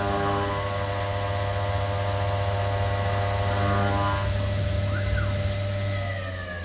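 CNC milling machine running a contouring cut: a steady spindle whine over a low hum, with a few brief chirps about four to five seconds in. Near the end the whine falls in pitch and the sound drops away as the spindle spins down.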